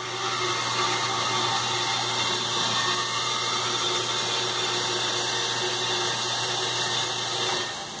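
Electric pump of a manual keg washer running steadily, with a constant hum and the hiss of rinse water jetting and circulating inside an upturned stainless steel beer keg; it cuts off shortly before the end.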